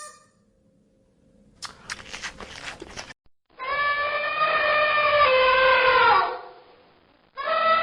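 Two long drawn-out animal cries, each holding a pitch and then sliding down at the end, the first lasting about two and a half seconds. Just before them there is a brief scratchy rustle.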